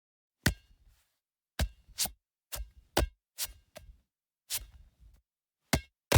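A series of about ten sharp clicks, irregularly spaced, with dead silence between them.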